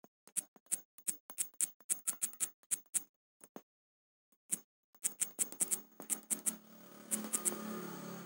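Quick light clicks of typing on a smartphone's on-screen keyboard: a fast run of taps as a phone number is entered, a short pause, then another short run as a word is typed. A low steady rumbling noise swells up near the end.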